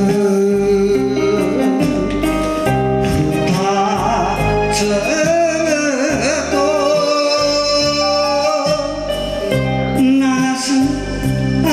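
A man singing a Japanese Shōwa-style ballad into a handheld microphone over instrumental accompaniment, holding long notes with a wavering vibrato.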